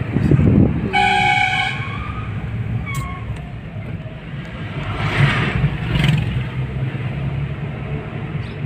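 Car engine and road noise heard from inside the cabin while driving on a winding mountain road. A vehicle horn sounds once, briefly, about a second in, and an oncoming bus passes close by around five to six seconds in, swelling the noise for a moment.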